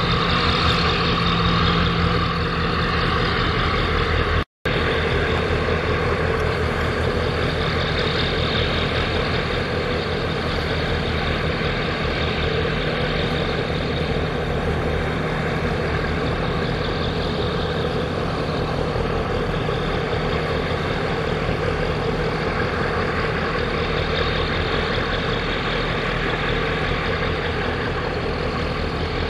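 A boat engine running steadily as a low pulsing drone, with rushing water and wind noise over it. The sound drops out for a split second about four seconds in.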